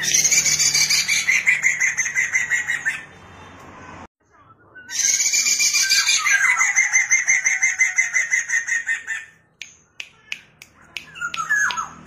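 Black-throated laughingthrush (poksay mandarin) singing in rapid, chattering runs of repeated high notes. There are two long runs with a short break between them, and a few brief sharper notes near the end.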